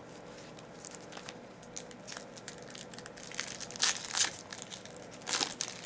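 Plastic wrapper of a hockey trading-card pack being crinkled and torn open by hand, in irregular crackles with the loudest bursts about two thirds of the way in and again near the end.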